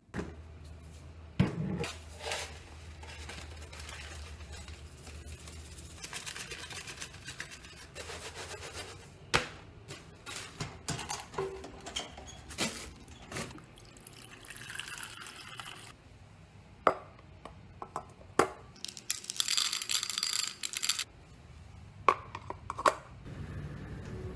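Household handling noises: a scattered series of knocks, clinks and rustles, over a low steady hum in the first few seconds. About two-thirds of the way in there is a hiss lasting about two seconds.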